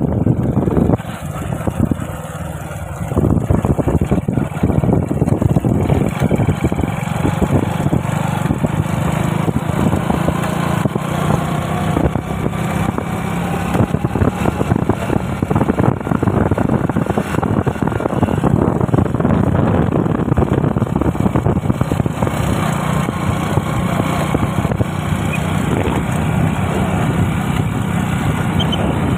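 Motorcycle engine running steadily while the bike is ridden, heard from the pillion seat with the rush of wind over the microphone. It dips briefly quieter about a second in.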